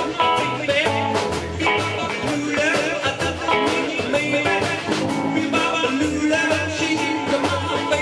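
A rock and roll band playing live, with a steady beat and a bass line pulsing under the other instruments, and no sung words.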